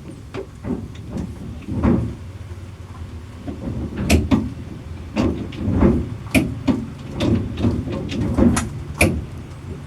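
Irregular knocks and rattles inside a bus cabin over a steady low rumble.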